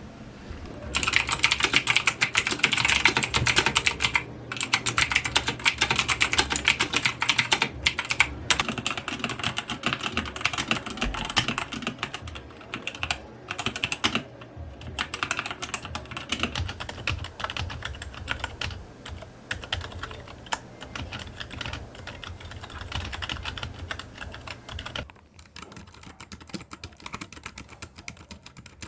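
Fast typing on an Eagle Z88 mechanical keyboard fitted with Outemu tactile switches (gray and Silent Forest), a dense clatter of key strikes. About 25 seconds in, the typing becomes quieter and sparser.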